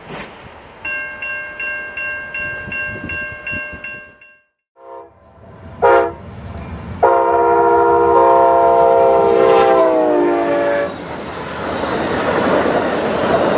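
A bell rings rapidly, about three strokes a second, for a few seconds. Then a Norfolk Southern locomotive in Penn Central heritage paint sounds its horn: short toots about five and six seconds in, then a long chord that drops in pitch as the locomotive passes. The rush and rattle of the train going by follows.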